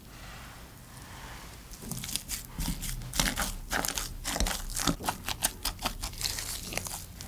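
Wire potato masher pressing butter into soft boiled potatoes in a glass bowl. Starting about two seconds in there is a quick run of short, wet, squishy mashing strokes, about three a second.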